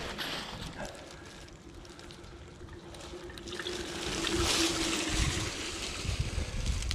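E-mountain bike rolling down a steep dirt descent: the tyres crunch and hiss over loose ground, swelling louder about four to six seconds in.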